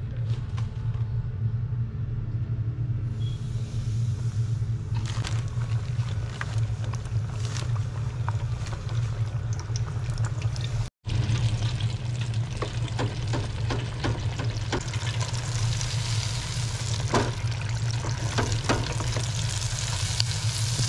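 Breaded crappie fillets deep-frying in hot oil in an electric deep fryer: a steady sizzling hiss full of small pops and crackles. It breaks off for an instant about halfway and comes back louder. A steady low hum runs underneath.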